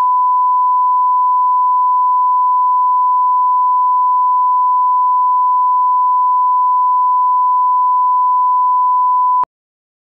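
Broadcast line-up test tone, the reference tone played with colour bars: one pure, steady beep at a single pitch that cuts off abruptly near the end.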